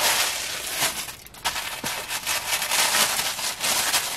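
Tissue paper rustling and crinkling as a piece of jewelry is unwrapped, almost continuous, with a brief lull just after a second in.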